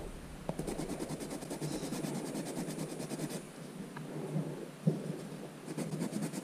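Nail file rasping in rapid back-and-forth strokes against the sharp edge of a plastic 7x7 speedcube wing piece, sanding it down to reduce catching. The filing pauses about halfway, a light knock sounds about three-quarters through, and a short run of strokes follows near the end.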